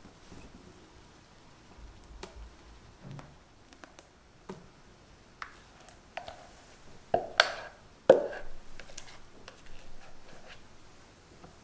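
Kitchen utensils handled around a glass mixing bowl of cake batter: scattered soft taps and scrapes, then a couple of louder knocks with a brief ring a little past halfway.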